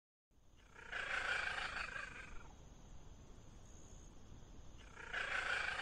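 Leopard cat calling twice, about four seconds apart: a drawn-out call of about a second and a half about a second in, and another near the end.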